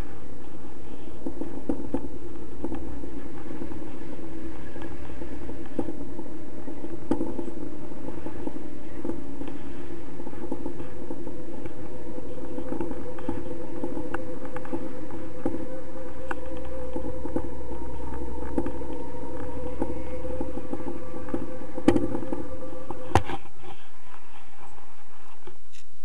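Wind rushing over the camera microphone during a tandem paraglider flight: a steady rumble with a whistling tone running through it. A couple of sharp clicks come near the end, and then the low rumble drops away abruptly.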